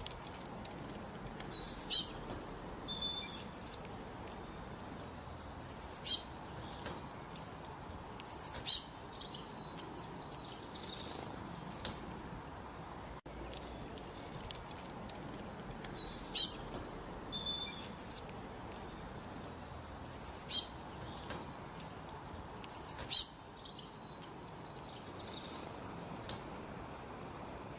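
A small bird singing: short bursts of high, quick notes every few seconds, with softer chirps between them, over a faint steady background hiss.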